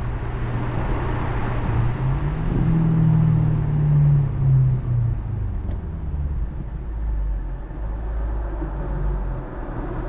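BMW 650i's naturally aspirated 4.8-litre V8, in sport mode, revs rising under acceleration from about two seconds in. It eases off near five seconds and then runs on at low revs with a steady drone.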